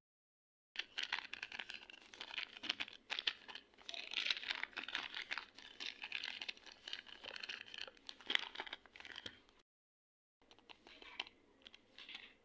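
A packet's thin wrapping being crinkled, handled and torn open: a dense, crackly rustle that stops dead about ten seconds in and starts again a moment later.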